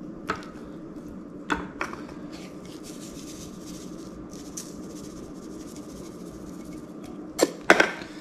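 Creole seasoning shaken from a shaker can over raw fish fillets, a faint hiss in the middle, amid sharp knocks and clinks on a granite countertop, the loudest cluster near the end.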